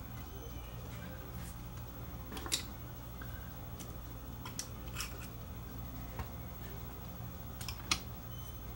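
Scattered light clicks and taps from the cassette mechanism's sheet-metal chassis and drive motor as they are handled and fitted together, the sharpest about two and a half seconds in and near the end, over a steady low hum.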